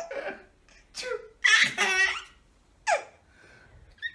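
A baby laughing hysterically in several short bursts of high giggles over the first three seconds.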